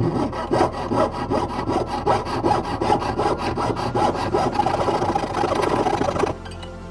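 Jeweler's saw cutting back through the soldered joint of a ring, in quick back-and-forth strokes of about five a second, stopping abruptly about six seconds in.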